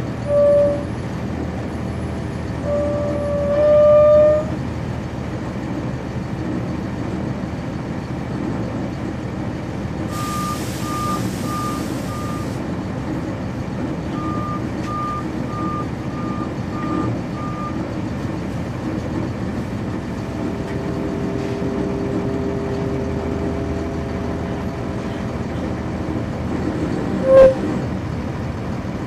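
Cummins ISC diesel of a NovaBus RTS transit bus running, heard from on board. Two short loud tones come early and another near the end. In the middle, a burst of hissing air and a repeating beeping alert of about ten evenly spaced beeps.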